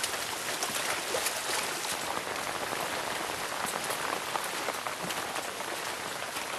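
Steady rain falling, with many small, separate drop impacts heard through it.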